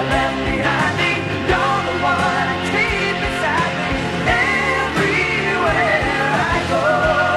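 Background music: a song with a sung melody over a steady beat.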